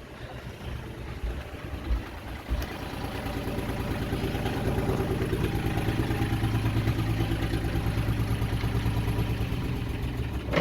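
Yanmar 3GM30F three-cylinder marine diesel idling steadily, with a couple of short knocks about two seconds in and the engine growing louder about three seconds in. It is running after being started with the master switch bypassed, which points to a faulty master switch.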